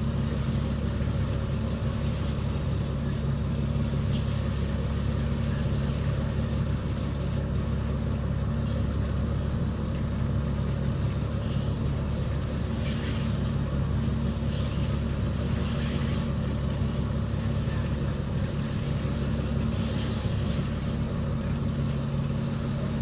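A fishing boat's engine running steadily at a constant speed, with a few faint clatters over it.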